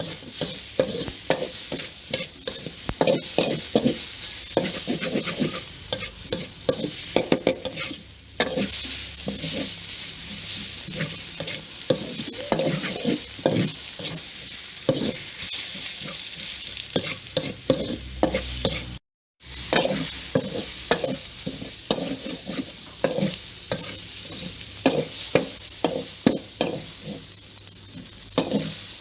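Food sizzling as it fries in a pan, with a utensil stirring and scraping against the pan in many quick, irregular strokes. The sound cuts out for a moment about two-thirds of the way through.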